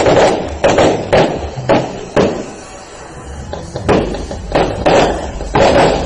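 Fireworks bursting: a rapid string of bangs, about two a second, that pauses briefly and starts up again about four seconds in.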